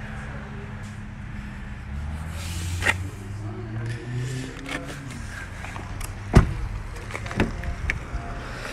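A car door shut with a single solid thump about six seconds in, followed by a lighter knock and a few small clicks as the next door is handled. A low rumble runs underneath, swelling for a couple of seconds early on.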